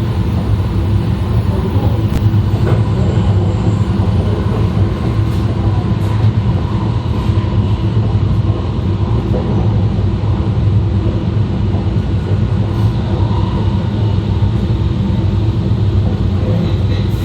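E2 series Shinkansen running noise heard from the vestibule between cars: a steady, loud rumble of wheels and running gear on the track.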